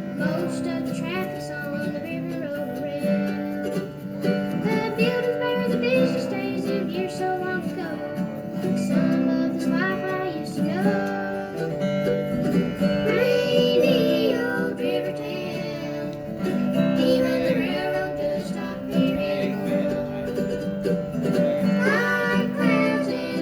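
A bluegrass band playing live, with acoustic guitar and other plucked string instruments carrying a steady, continuous tune.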